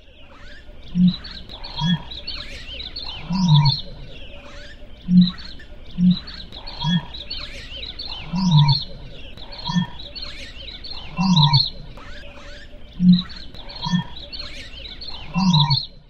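Masai ostrich booming: a series of deep, low booms, short ones followed every few seconds by a longer boom that falls in pitch. This is the male ostrich's territorial call. Fainter, higher chirps of other wildlife sound behind it.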